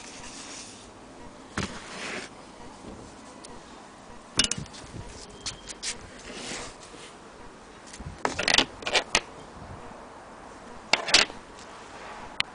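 Scattered clicks and knocks, with short clusters of them about 8 and 11 seconds in, like small hard objects being handled.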